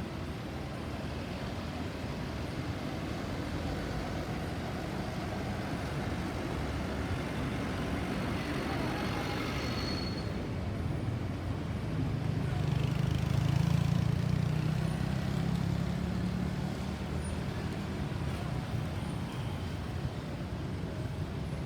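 Steady road traffic noise, with a vehicle passing close and louder for a few seconds about two-thirds of the way through.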